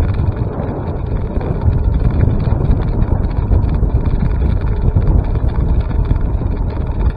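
Wind buffeting the microphone: a loud, steady, rough rumble.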